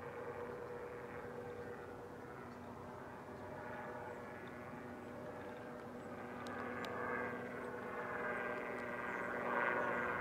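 Small light helicopter flying past, its engine and rotor making a steady drone that grows louder toward the end.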